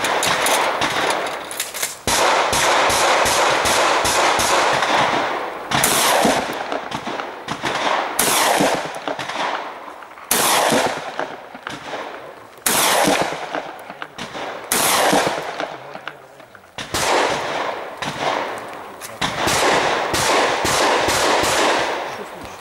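Shotgun firing in rapid strings of shots. A new loud string starts every two seconds or so, and each one fades before the next.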